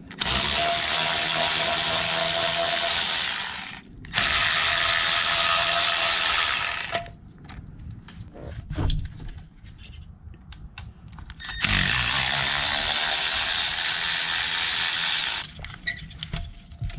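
Cordless power driver running in three spurts of about three to four seconds each, backing out the screws that hold the wiring harness on the intake manifold of an M272 engine, with small clicks of handling between spurts.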